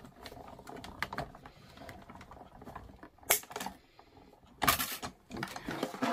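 Hand-cranked die-cutting machine being turned, its rollers and gears clicking steadily as the plate sandwich rolls through, with louder clacks about three seconds in and again near five seconds.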